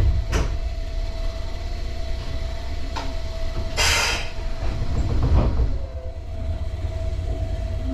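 Electric commuter train heard from inside its cab while stopped and starting to pull away: a steady low rumble and a constant hum, a click near the start, and a short hiss about four seconds in.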